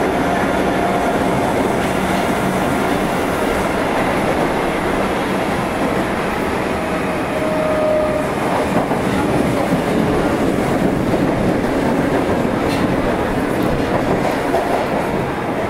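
Osaka Metro 30000 series subway train running through a tunnel, heard from inside the car: a steady rumble of wheels on rail. Brief faint whistling tones come about a second in and again near eight seconds.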